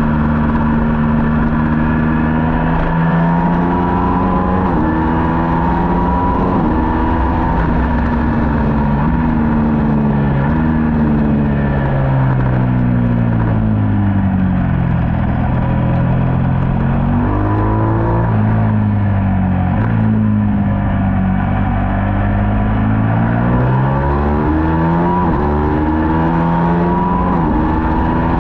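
Middleweight superbike engine at racing speed. The revs climb in quick steps with a drop at each upshift, then fall away through the middle as the bike slows through the downshifts. Near the end it climbs through the upshifts again.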